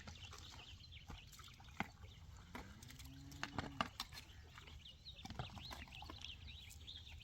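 Faint outdoor ambience: small birds chirping repeatedly, with scattered light clicks.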